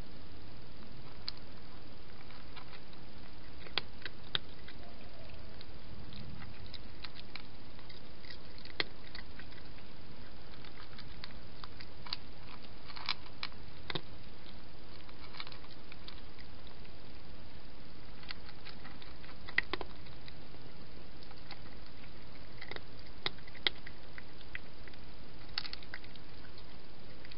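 A cat eating dry food, its crunching heard as irregular crisp clicks, some louder than others, over a steady hiss.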